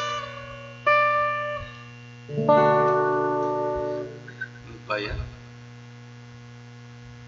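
Acoustic guitar closing a song: a chord about a second in, then a final chord a second later left to ring and fade out over about two seconds. A brief vocal sound follows near the five-second mark, then only a steady electrical hum.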